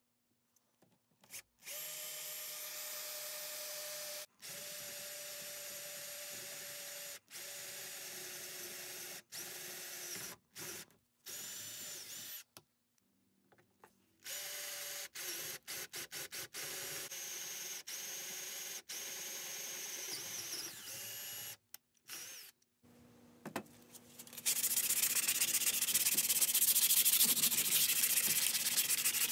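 Power drill running a twist bit down through a wooden block in several stretches, a steady motor whine broken by abrupt stops. From about 24 seconds in, a wooden board is sanded by hand, a louder back-and-forth rubbing.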